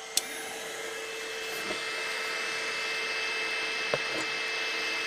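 CoreXY 3D printer with a pellet extruder running a print: a steady whir from the print head's fans and motors with a constant high whine, growing slightly louder. There is a light click near the start and another about four seconds in.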